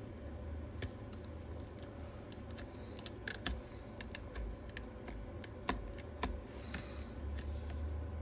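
Irregular light clicks and ticks of small repair tools working against the inside of an iPad Pro housing while the alcohol-softened battery adhesive is pried loose.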